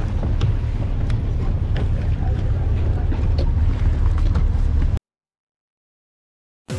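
Wind buffeting the microphone: a loud, heavy low rumble with a hiss over it, cutting off suddenly about five seconds in.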